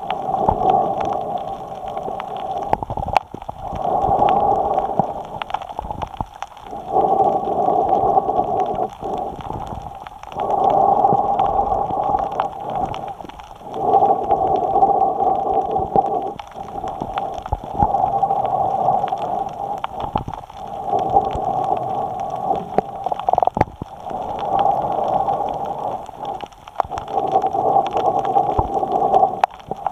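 A snorkeler breathing in and out through the snorkel tube, picked up close by a camera mounted on the snorkel. The breaths come in a steady rhythm, one about every three to four seconds, with short pauses between them.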